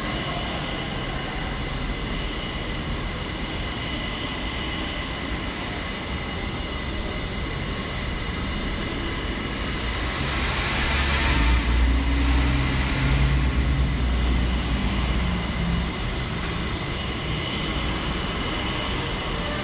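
Parking garage ambience: a steady hum and hiss with a few faint constant tones, and a vehicle rumbling past, echoing, that swells about ten seconds in and fades over several seconds.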